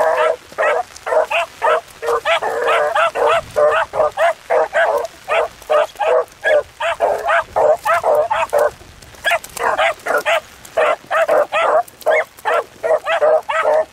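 Two beagles baying while trailing a rabbit's scent line: a steady run of short, pitched calls, several a second, the voices overlapping at times.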